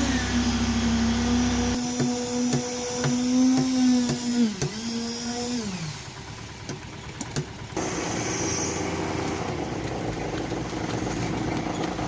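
Engine-driven site machinery running steadily, with a regular knocking about twice a second; the engine's pitch dips briefly, then falls away about six seconds in, and a fainter, higher-pitched motor carries on to the end.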